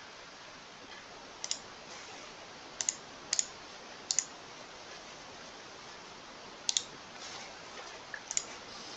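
Computer mouse button clicks: about seven short, sharp clicks at irregular intervals, most of them quick press-and-release pairs, over a faint steady hiss.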